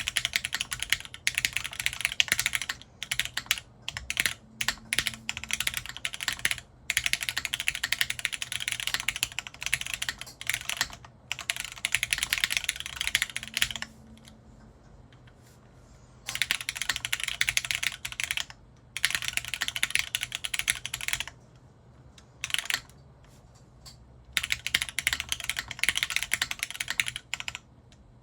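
Typing on a TGR Jane V2 ME custom mechanical keyboard with Cherry MX Black linear switches, their stems polished with diamond paste and lubed, on a full polycarbonate plate under GMK keycaps. Fast runs of keystrokes broken by two pauses of a couple of seconds, one around the middle and one about three quarters of the way through.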